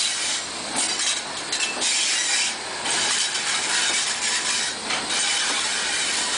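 Steam locomotive standing at the platform with steam hissing, an even hiss that swells and eases a few times.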